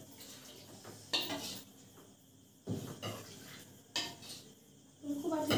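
A steel ladle clinking against a stainless-steel serving bowl as food is ladled out: three sharp knocks a second or so apart.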